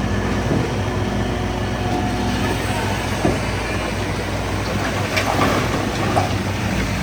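Heavy earthmoving machinery running steadily with a low diesel hum, with a few short metallic squeals and clanks about five and six seconds in, typical of bulldozer tracks.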